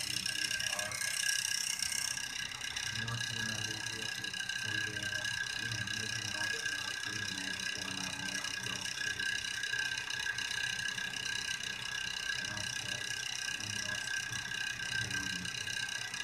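A steady, high-pitched background drone made of several held tones, unchanging throughout, with faint low murmuring underneath at times.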